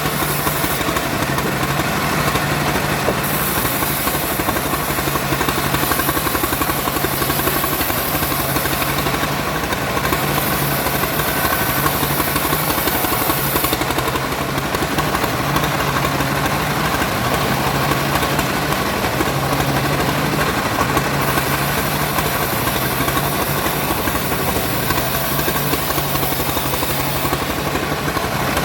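A wood saw's engine running steadily, with a low hum that rises and falls over several seconds.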